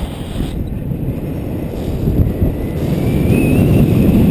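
Airstream rushing and buffeting over the microphone of a paraglider in flight, growing louder toward the end, with a faint, high, wavering tone coming in near the end.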